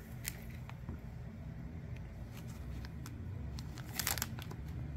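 Plastic snack packet crinkling as it is handled: a few faint rustles and clicks, and one short, louder crinkle about four seconds in.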